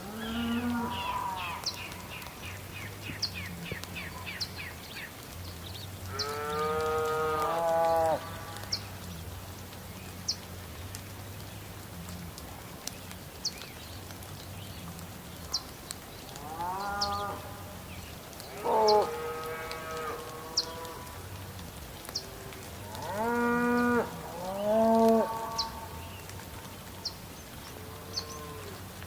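Farm animals calling, like cattle lowing: about half a dozen drawn-out calls, each a second or two long, some in close pairs. Short sharp ticks recur throughout, over a steady low hum.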